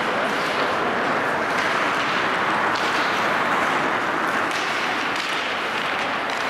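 Steady ice-rink din during an ice hockey game, with a few faint scrapes and taps from skates and sticks on the ice.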